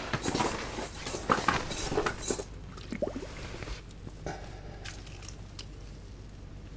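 Handling noises as a walleye is held up and lowered back into an ice-fishing hole: a quick run of clicks and light knocks for about two and a half seconds, then a few scattered softer knocks.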